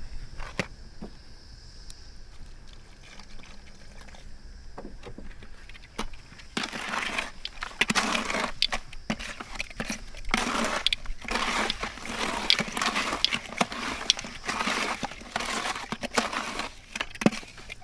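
A hand squelching and stirring thick mud slurry of topsoil and water in a plastic bucket, in irregular wet sloshing strokes that start about six seconds in. The slurry is being mixed toward a pancake-batter consistency and is still a little too thick. Before the mixing, water is poured in quietly from a plastic jug.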